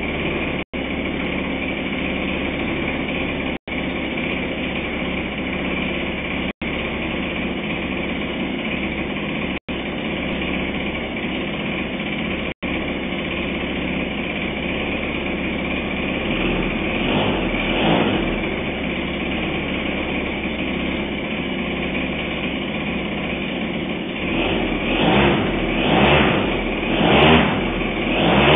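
Turnigy FTL52 model engine running steadily. Near the end its sound swells and falls about once a second.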